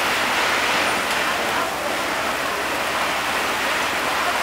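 Fire hoses spraying water onto a burning car: a steady rushing hiss with no breaks.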